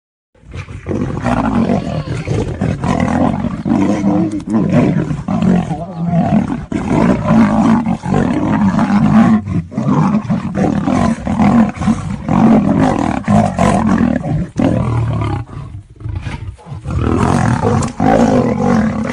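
A lion and a tiger roaring as they fight: loud, almost unbroken roars that start about half a second in, with a short lull about three-quarters of the way through.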